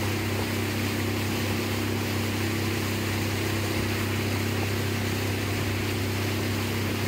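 An engine running at a steady speed, a constant low drone with a hiss of wind or water over it.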